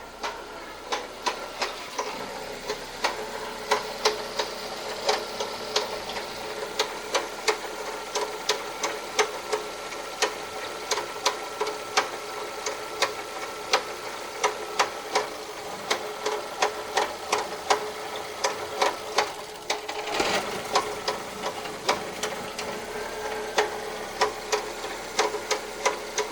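Car engine running with a sharp knock repeating roughly twice a second, unevenly, over a steady hum. The owner ties the knocking to the warning light calling for an immediate oil change.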